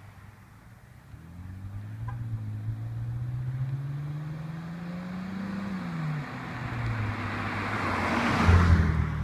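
2007 BMW 525i's straight-six through a custom exhaust, accelerating toward and past. The note climbs in pitch, drops once around six seconds in as it shifts up, climbs again, and is loudest as the car sweeps close by near the end.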